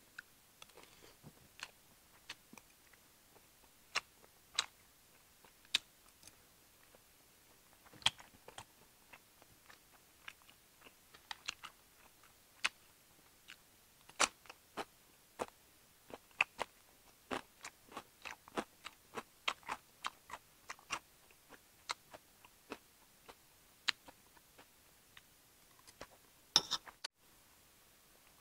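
Close-up eating sounds: irregular light clinks of a metal fork and spoon on ceramic plates, with chewing and the crunch of cucumber slices. The clinks come thicker in the second half, with a louder cluster near the end.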